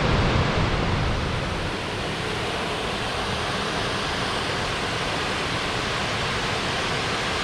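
Flood-swollen Middle Falls at Burgess Falls, with heavy water churning and rushing in a steady, even wash of noise. Wind buffets the microphone with a low rumble for the first couple of seconds.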